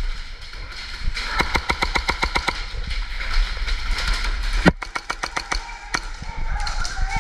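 Airsoft guns firing in rapid strings of sharp shots, about eight a second: a run about a second in and another near the middle, led by one louder crack.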